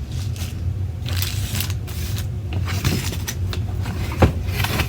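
Rustling and scraping of packaging and plastic parts being handled during unboxing, over a steady low hum, with one sharp knock about four seconds in.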